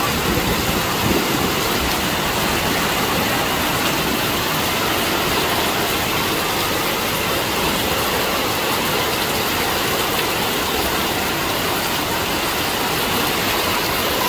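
Muddy floodwater rushing through a village street: a loud, steady rushing noise.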